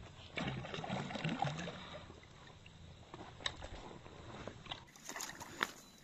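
Water sloshing and lapping, with scattered light clicks and knocks.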